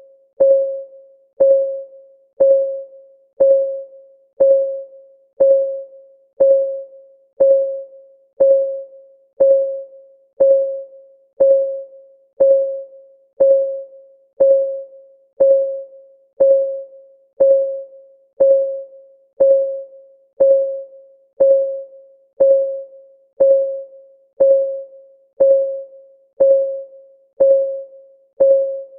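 Clock-ticking sound effect of a countdown timer: a steady tick once a second, each a short pitched tock that dies away quickly.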